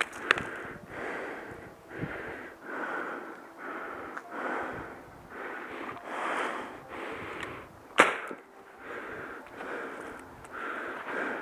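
Footsteps in snow, a steady walking rhythm of about one and a half to two steps a second, with one sharp snap about eight seconds in.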